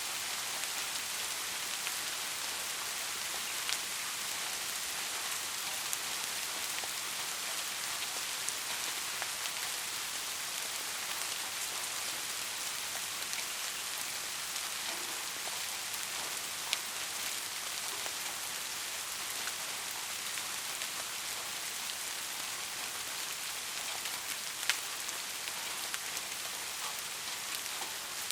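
Soft, steady rain falling as an even hiss, with the odd louder drop ticking sharply now and then.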